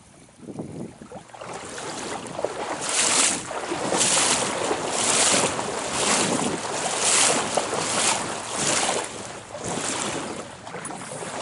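An angler wading in a shallow stream, each step a splashing swish, about one a second, over the noise of moving water.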